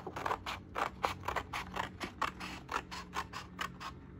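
Scissors cutting through black card in a quick run of short snips, about four a second.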